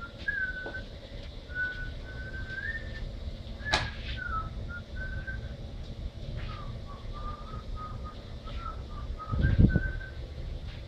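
A person whistling a tune, a single clear pitch stepping up and down in held notes with short breaks, over a steady low rumble. A sharp click about four seconds in, and a low thump near the end, the loudest sound.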